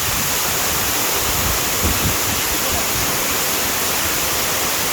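Waterfall rushing, a loud steady wash of water noise that does not change.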